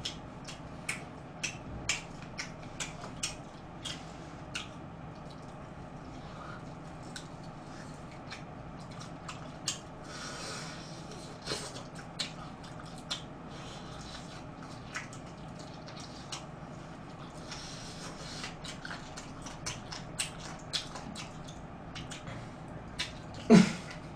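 Close-up eating sounds of someone chewing whole fried chicken by hand: irregular clicks, smacks and squishy mouth noises, with two longer noisy stretches. A steady low hum sits underneath, and there is a short vocal sound near the end.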